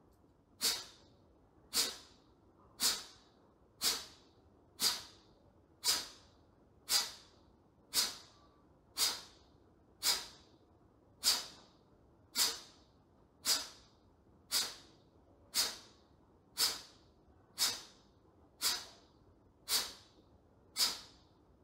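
Kapalabhati breathing: about twenty short, forceful exhalations through the nose, one about every second, each a sharp puff of breath.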